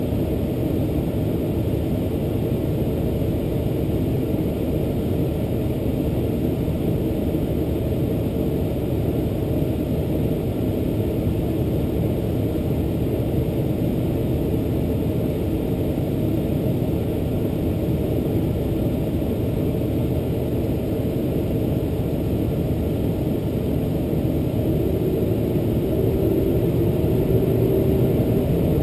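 The Boeing 747-400's General Electric CF6-80C2 turbofans running at low power, heard from inside the cabin as a steady low rumble. The sound grows louder over the last few seconds, and a held hum joins it.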